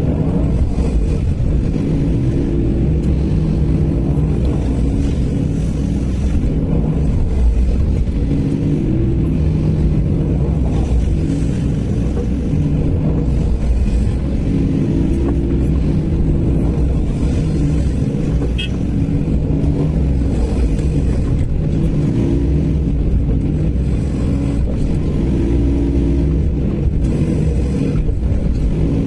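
Sany SY215C excavator's diesel engine running continuously, its note swelling and easing every few seconds as the machine works through its digging and loading cycles.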